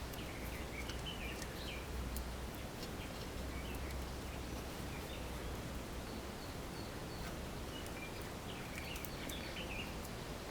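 Steady outdoor background noise with a low hum, faint bird chirps here and there, and a few light clicks.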